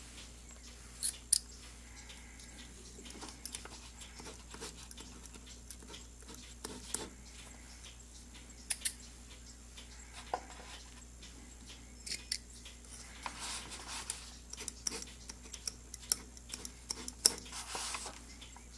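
Sycamore button-click ballpoint pen being handled: scattered small sharp clicks at irregular intervals, with light rubbing between them.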